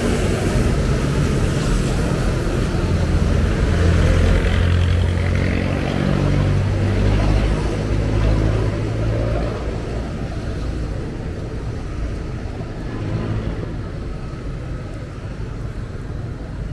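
Street traffic: a motor vehicle's engine running close by, a low hum that is loudest through the first half and then eases away.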